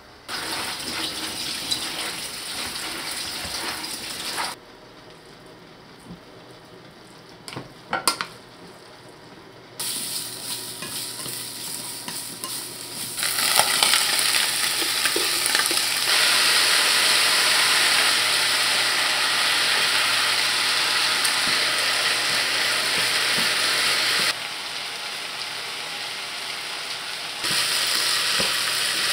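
Julienned potatoes frying in oil in a pan: a loud, steady sizzle begins about halfway through as they are tipped in from a colander, and chopsticks stir them near the end. Before that come shorter stretches of steady rushing noise and a couple of sharp clicks.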